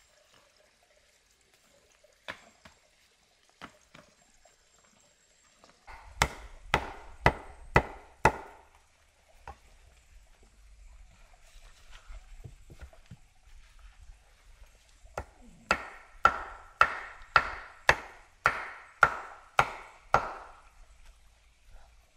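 Wood being chopped with an edged tool. A few single knocks come first, then a run of about six strokes, then a longer run of about a dozen, each at two to three strokes a second.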